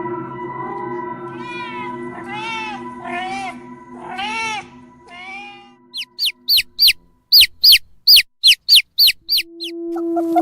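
Cat meowing about five times, each call rising and falling in pitch, over a steady background music drone. From about six seconds in comes a quick run of a dozen short, very high-pitched chirps.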